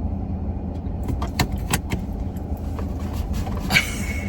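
Car road noise: a steady low rumble, with scattered light clicks and a brief higher squeak near the end.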